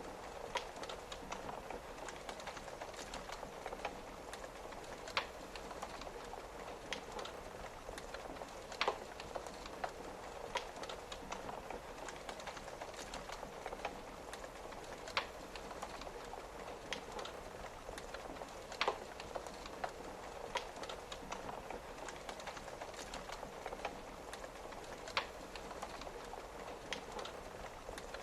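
Wood fire crackling, with small irregular snaps and a louder sharp pop every few seconds, over a steady hiss of rain against a window.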